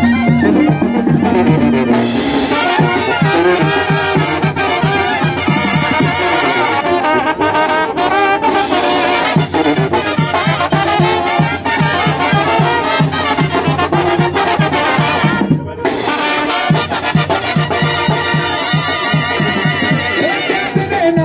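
Live Mexican banda playing an instrumental passage: trumpets and trombones carrying the tune over a tuba's steady pulsing bass and drums. The band stops briefly about three-quarters of the way through, then plays on.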